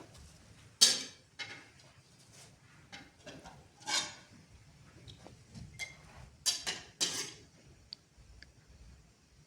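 Dishes and cutlery clattering: a handful of separate knocks and clinks, the sharpest about a second in, with two faint, brief ringing chinks near the end.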